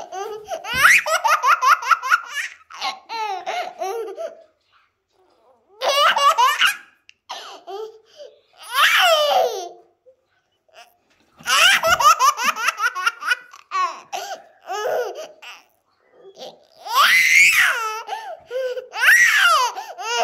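Toddler laughing hard in repeated bouts of rapid, high-pitched 'ha-ha' pulses, about six bouts with short quiet breaks between them.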